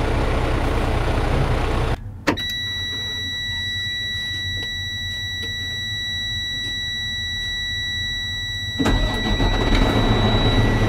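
Freightliner dump truck's low air pressure warning buzzer: after a click about two seconds in, a steady high-pitched buzz sounds on without a break, signalling that there is no brake air yet. Under it the truck's engine runs, quieter for most of the buzz and louder again near the end.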